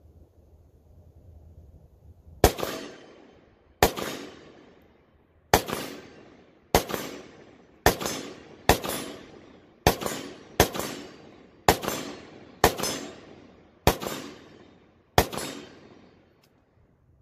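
Twelve single shots from a WASR-10/63 semi-automatic AK-pattern rifle in 7.62x39mm, fired at a steady pace of about one a second, each followed by a fading echo.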